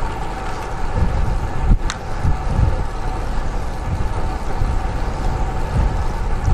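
Wind buffeting a road bike rider's action-camera microphone, with irregular low gusts over steady road noise while riding. A single sharp click about two seconds in.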